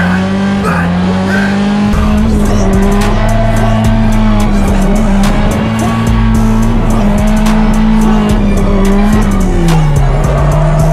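A drift car's engine held high in the revs at a near-steady pitch while the tyres squeal through a long slide; the engine note drops near the end.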